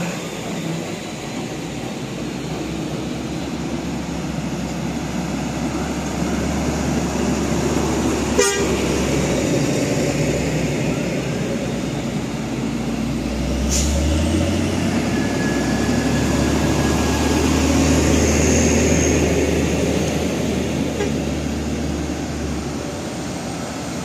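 Heavy diesel trucks rolling slowly past in a convoy, engines running with a steady low rumble that rises about 14 seconds in as one pulls away. Two short sharp sounds come about 8 and 14 seconds in, and a brief horn toot is heard.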